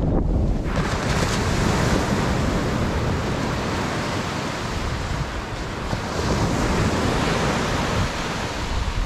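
Small waves breaking and washing up a sandy beach, a steady rushing surf that comes in strongly about a second in, with wind rumbling on the microphone.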